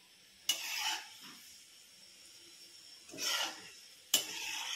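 Gulab jamun dough balls slipped into hot ghee in an iron kadai, each setting off a short burst of sizzling: three bursts, about half a second in, around three seconds in and just after four seconds, the last starting sharply.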